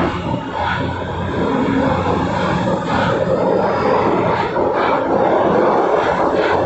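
Stainless-steel subway train accelerating out of an underground station, its steady running rumble and motor whine filling the platform. About halfway through, wheel clacks start coming at intervals as it gathers speed.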